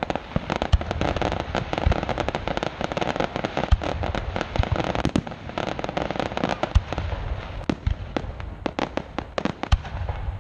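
Aerial fireworks bursting: a dense run of crackling and many sharp bangs, thinning to separate bangs near the end.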